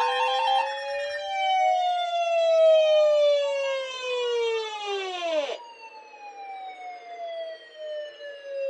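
Electronic siren-like tones: one pitch rising while another falls, the two crossing. About five and a half seconds in they swoop sharply down, leaving a single tone sliding slowly lower.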